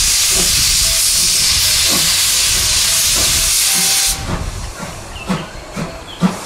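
Steam locomotive made up as Thomas the Tank Engine blowing off a loud, steady hiss of steam from its cylinder drain cocks, which cuts off suddenly about four seconds in. Short regular beats follow, about two a second.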